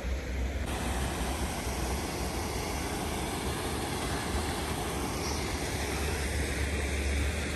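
Steady rush of water pouring through the arched openings of a small stone sluice into a stream, with a low rumble beneath it.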